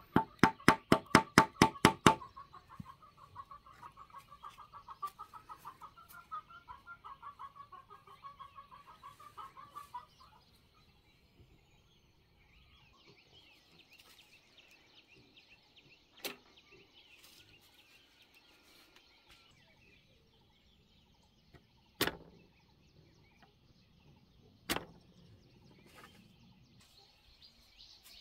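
Chicken clucking: a fast run of loud clucks over the first two seconds, then softer clucking that fades out about ten seconds in. After that it is quiet apart from three sharp knocks.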